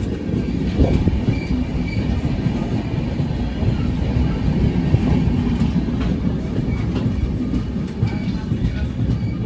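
Indian Railways sleeper-class coach running at speed, heard from its open doorway: a steady rumble of the wheels on the track.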